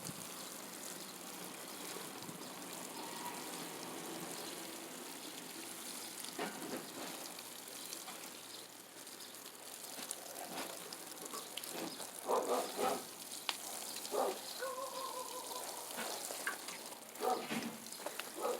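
Water running from a garden hose onto a garden bed, a steady gushing hiss. From about halfway on come scattered rustles and snaps of weed seedlings being pulled from the soil.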